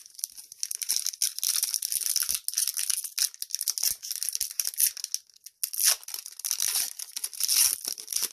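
A Yu Yu Hakusho TCG booster-pack wrapper being torn open and crinkled, a dense crackling that runs on with a few short pauses.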